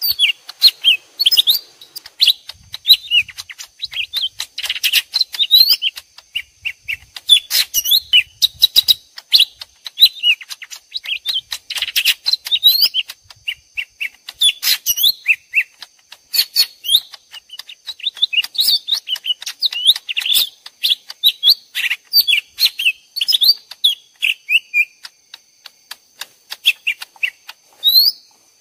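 Lesser green leafbirds (cucak ijo mini) calling back and forth in rapid, sharp, sliding chirps, like two birds fighting. It is a lure recording made to draw wild leafbirds to a trap. A faint steady high tone runs underneath.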